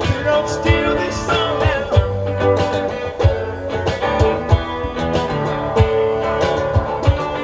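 Instrumental passage of a country-blues song: guitar playing over a bass line, with no singing.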